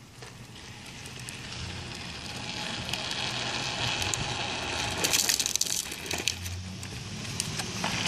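Green Machine drift trike's hard plastic wheels rolling and grinding over asphalt, growing louder as it comes closer, with a burst of crackling scrapes about five seconds in.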